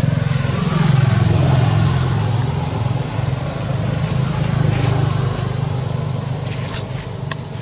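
A motor vehicle's engine running close by, its low drone wavering and fading slightly near the end.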